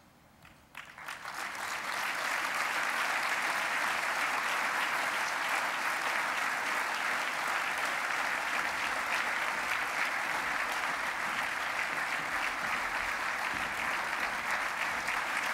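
Audience applause: a few scattered claps about a second in, building within a second to steady clapping that holds throughout.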